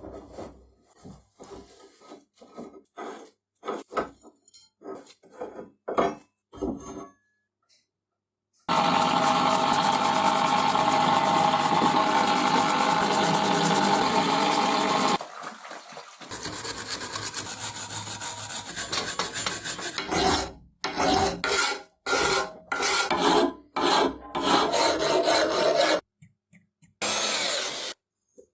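Hand scraping and filing strokes on a large rusty leg vise during rust removal: a run of quick rasping strokes, a steady continuous rasp of about six seconds in the middle, then more rhythmic strokes.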